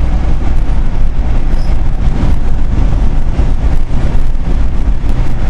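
Steady, loud low rumble of a car driving on a wet road, heard from inside the moving car.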